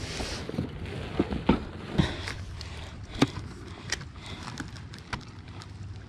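Handling noise in a plastic fishing kayak: a scattered string of sharp clicks and knocks as a landing net, a fish lip-grip and a landed sheepshead are moved about on the deck.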